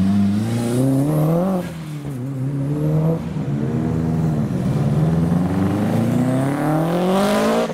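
Turbocharged four-cylinder cars accelerating away from a junction. A Mitsubishi Lancer Evolution revs up and drops revs at a gearchange about a second and a half in. Near the end a Subaru Impreza revs up steadily as it pulls away.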